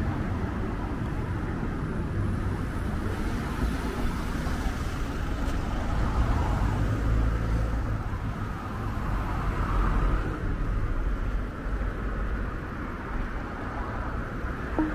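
City street traffic: cars passing on the road, a steady rumble of engines and tyres that swells now and then as vehicles go by.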